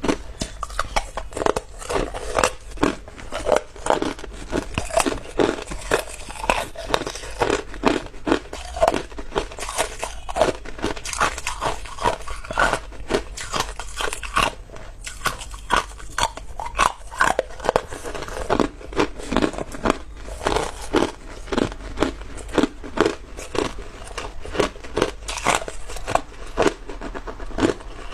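Close-up crunching of clear ice chunks being bitten and chewed, a rapid run of sharp cracking snaps several times a second.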